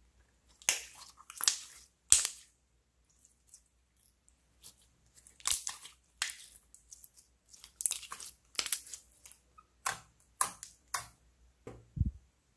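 Clear glitter slime being squeezed and pressed by hand, giving an irregular series of sharp wet pops and crackles, with a soft low thump near the end.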